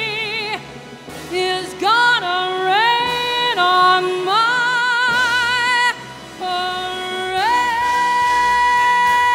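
A woman singing a show tune solo: short phrases whose notes scoop up and are held with wide vibrato. About three-quarters of the way in she goes up into a long, high, steady held note, the song's closing note.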